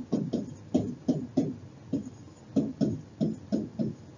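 Pen strokes and taps against an interactive whiteboard as a word is hand-written, a run of short, low knocks at an uneven pace of about three a second.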